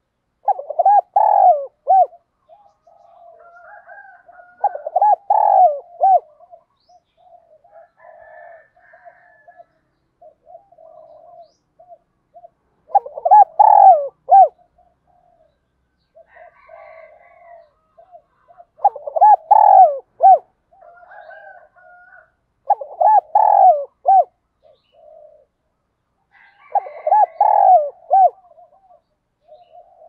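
Spotted dove cooing: six loud phrases of several quick coos each, spaced a few seconds apart, with softer calls in between.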